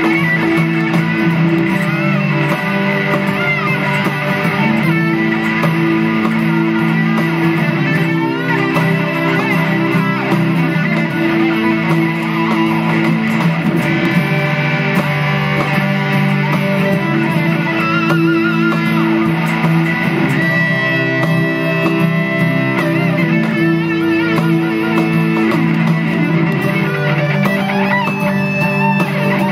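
PRS Singlecut Trem electric guitar played through a Skreddy Screwdriver and a Cusack Screamer pedal into a Dr. Z amp: a solo guitar line of held notes and changing chords with long sustain.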